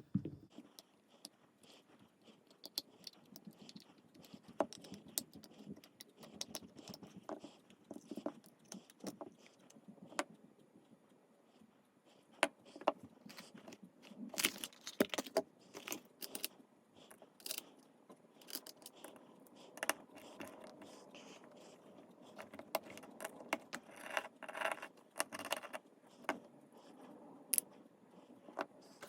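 Irregular clicks, taps, light rattles and scrapes of small hard objects being handled, busier and louder in the second half.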